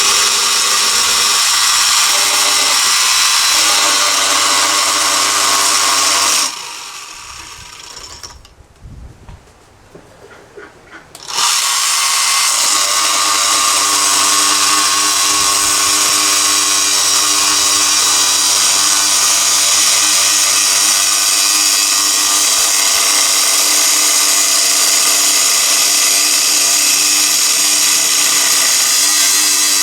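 Electric power tool running at high speed with a steady, loud whine while cutting a piece to length. It stops about six and a half seconds in and starts again about five seconds later.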